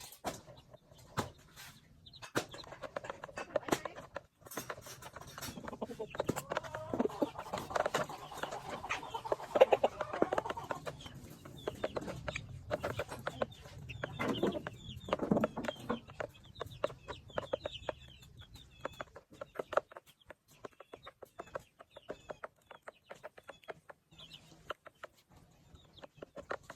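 Chickens clucking, loudest in two stretches, with many sharp ticks and taps throughout.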